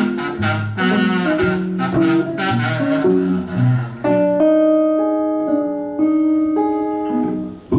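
Acoustic guitar strummed with a neck-rack harmonica in an instrumental break. About halfway through the strumming drops back and the harmonica plays long held notes, stepping from one pitch to the next.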